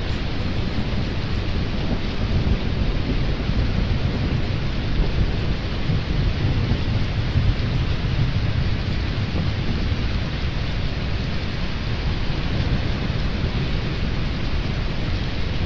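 Thunderstorm ambience: a steady hiss of rain over a continuous low rumble of thunder.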